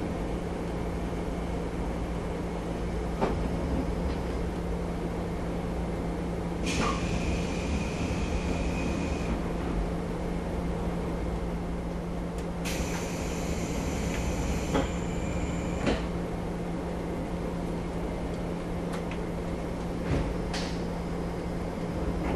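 Inside a JR 381 series electric train car at a stop: a steady low hum from the car's equipment, two hissing bursts of a few seconds each, and a few sharp clicks and knocks.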